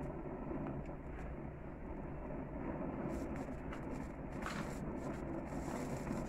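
Steady noise of a gas grill's lit burners, with scattered crackles from a tri-tip searing on the grate. The sharpest crackle comes about four and a half seconds in, as dripping fat flares up.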